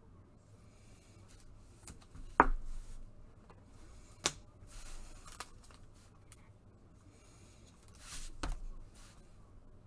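Trading cards and packs being handled on a table: soft rustling broken by three sharp snaps or taps, the first the loudest, about two seconds apart and then four.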